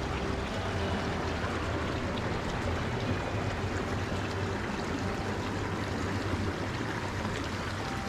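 Shallow forest creek flowing steadily over stones and gravel, a continuous rushing and rippling of water.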